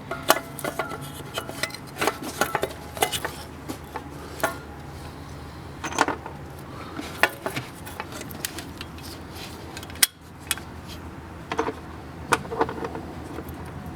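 Scattered light metallic clinks and taps of parts and tools being handled while a new thermostat and its housing are fitted, with one sharper knock about ten seconds in. A faint steady hum runs underneath.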